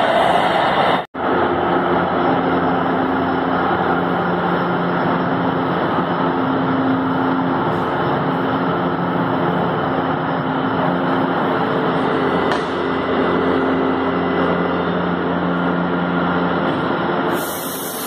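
Metro train standing at an underground platform, its onboard equipment giving a steady hum with a few level tones that come and go, over the noise of the station. The sound drops out briefly about a second in.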